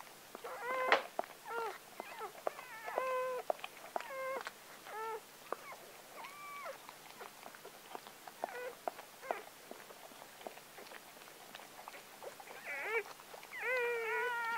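Newborn Gordon Setter puppies crying in short, high, mewing squeals, a run of cries through the first half and again near the end. Between the cries come short wet clicks of the mother dog licking a just-born puppy.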